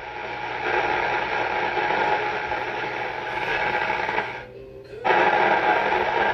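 Two-way radio receiver putting out rough, noisy static and garbled signal with a steady low hum underneath. It cuts out briefly about four and a half seconds in, then comes straight back.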